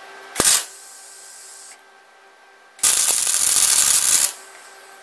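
MIG welder arc crackling as a steel engine-mount bracket is tack-welded. There is a brief strike about half a second in, then a weld of about a second and a half near the end, with a faint steady hum beneath.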